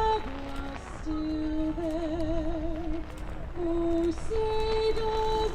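A woman singing a slow melody alone, holding long notes that step up and down, several with a wavering vibrato, over a steady low rumble.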